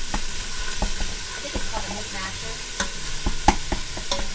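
Ground turkey sizzling in hot oil in a Ninja Foodi pot on sear/sauté, with a plastic meat masher chopping through it and tapping against the pot in irregular clicks, roughly two a second.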